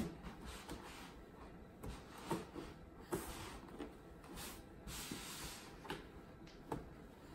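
A baby's hands patting, pressing and rubbing on a cardboard box: light taps and a few sharper knocks on the cardboard, with a longer scraping rustle in the middle.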